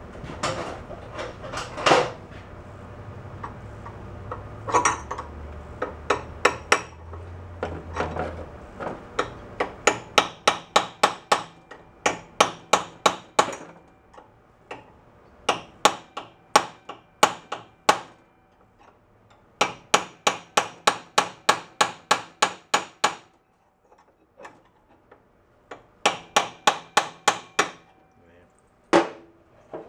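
A hammer strikes a brass drift held against a stuck pulley hub on a snowblower shaft, trying to drive the pulley back and break it free after penetrating oil. A few scattered knocks come first, then quick runs of metallic taps, about three a second, with short pauses between the runs.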